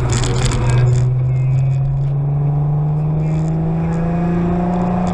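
Volkswagen MK5 R32's 3.2-litre VR6 engine accelerating in gear, heard from inside the cabin, its pitch climbing steadily.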